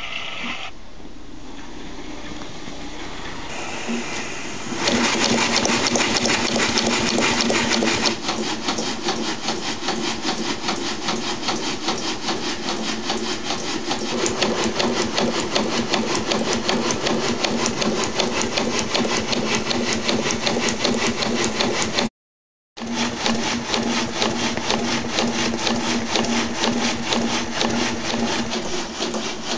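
A Bolton 17 marine steam engine with Stephenson's link reversing gear runs on 15 psi saturated steam, making a fast, even clatter of crank and valve gear. It is quieter at first, then about five seconds in it gets louder and settles into a rapid steady rhythm. The sound cuts out for about half a second a little past two-thirds of the way through.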